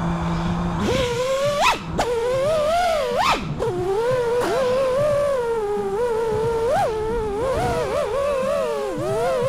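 5-inch FPV quadcopter's brushless motors and propellers, a low steady hum at first, then a whine that climbs as it lifts off about a second in. The whine swoops up and down with the throttle, with two sharp punches early on.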